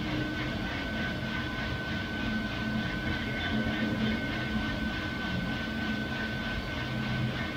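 Loring 15k Falcon coffee roaster running mid-roast: a steady mechanical rush with a thin constant high whine, and green coffee beans tumbling in the turning drum.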